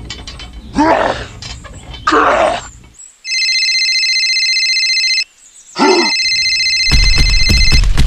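Telephone ringback tone: a steady electronic ring, heard twice, about two seconds each, while a call is being placed. Short voice-like sounds come before it, and a loud clattering noise with a deep rumble sets in about seven seconds in.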